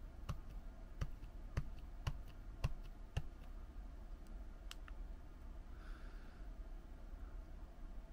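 Game controller buttons clicking as flashcards are advanced, about one press every half second for the first three seconds, then one more click about a second and a half later. A faint breath or sigh near the six-second mark.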